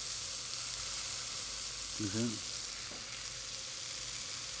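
Monkfish pieces searing in an oiled grill pan: a steady sizzle. The fish is part-cooked on its first side, not yet flipped.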